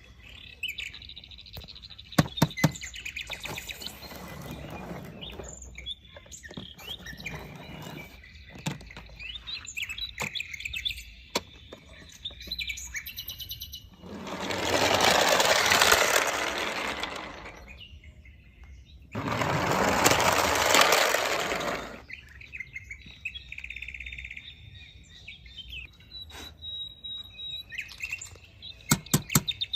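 Small birds chirping and trilling, with scattered sharp clicks. Twice, about halfway through and again a few seconds later, a loud rushing noise rises and falls over about three seconds.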